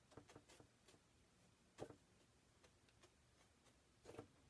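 Near silence with a few faint short taps and scratches of a bristle chip brush dabbing oil paint onto a small panel. The clearest tap comes a little under two seconds in, and another comes near the end.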